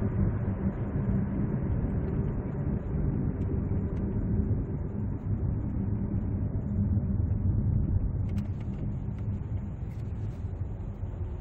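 Steady engine and road rumble inside the cabin of a Ssangyong Chairman with a 5.0-litre V8, driving along in traffic.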